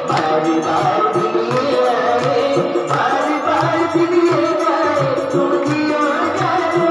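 Live song through a microphone and loudspeakers: a singer's melody over a steady drum beat.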